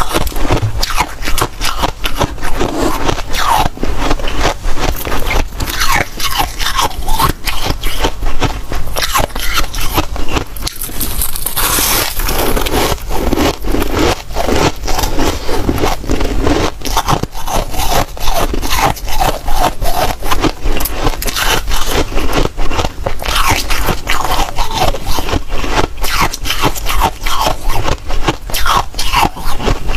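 Freezer frost ice being bitten and chewed close to the microphone: a dense, continuous run of crunches and crackles.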